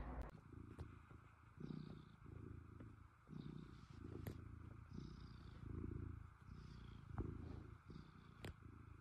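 A domestic cat purring faintly in a slow, even rhythm of about two pulses a second while it kneads a fleece blanket with its front paws.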